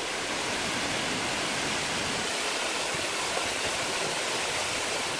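Waterfall running heavy after days of rain: a steady, even rush of falling water.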